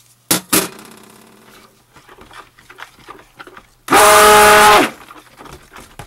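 Two clinks of a glass dish set down on a stainless steel counter, then a stick blender runs in one short burst of about a second, whining steadily in the soap batter to mix in the just-added fragrance oil.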